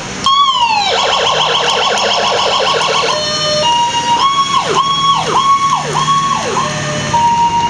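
Monroeville fire rescue truck's electronic siren cycling through its tones: a short falling sweep, about two seconds of fast yelp warble, a steady tone, then four quick rising-and-falling whoops and a steady tone near the end.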